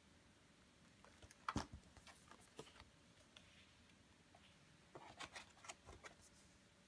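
Faint paper handling: the stiff pages and pop-up cardboard of a children's pop-up book rustling and tapping as a page is turned, in two short clusters of clicks, one about a second and a half in and another around five seconds in.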